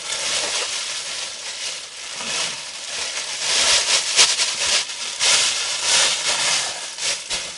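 Plastic bag rustling and crinkling as it is handled, in uneven bursts that come and go.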